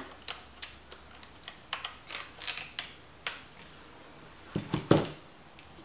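Light plastic clicks, taps and short scrapes of hands seating a replacement WWAN card in an open laptop, with a few louder knocks about three-quarters of the way through.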